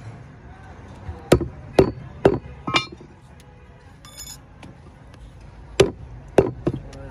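Heavy butcher's cleaver chopping mutton on a wooden block: four strokes about half a second apart, the last with a brief metallic ring, then a light metallic clink, then three more strokes near the end.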